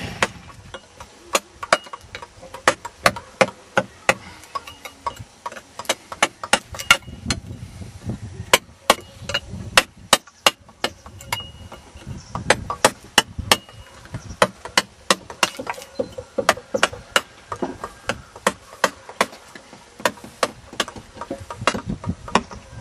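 Mallet striking the handle of a wood-carving chisel as it cuts into a log: sharp knocks about two a second, in runs with short pauses.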